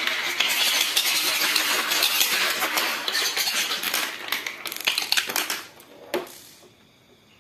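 Marbles clattering and clicking down a wooden HABA marble run: a dense stream of clicks that thins out after about five seconds, with a last sharp click about six seconds in, then dies away.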